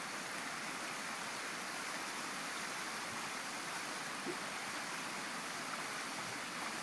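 Shallow creek water running over rocks, a steady rushing.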